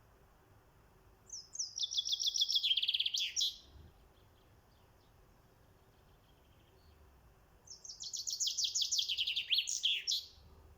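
Songbird singing two bursts of rapid trilled song, each about two seconds long. Each burst steps down in pitch and ends in a brief higher flourish.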